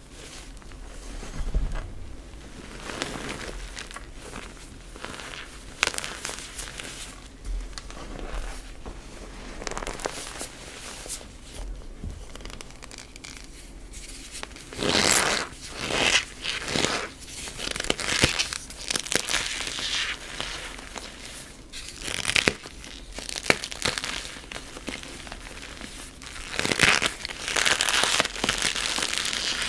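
Bare hands slowly crushing a cornstarch-topped block of BSN gym chalk: the chalk crunches and crumbles, and the packed cornstarch squeaks, in irregular bursts that are loudest about halfway through and again near the end.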